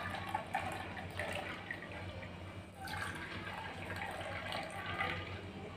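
Hot masala chai poured in a thin stream through a plastic tea strainer into a ceramic cup, splashing as the cup fills. The pour breaks off briefly about halfway through and starts again into a second cup.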